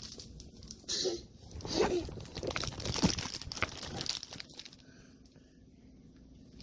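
Irregular crinkling and rustling handling noises for a few seconds, then quieter.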